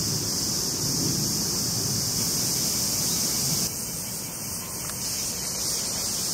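Steady high buzzing chorus of summer cicadas in the garden trees, with a low rumble beneath it.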